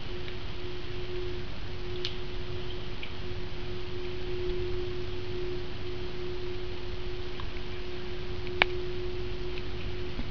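An unexplained, penetrating hum heard at night: one steady mid-low tone that swells and fades slightly, over a low rumble. A sharp click comes near the end.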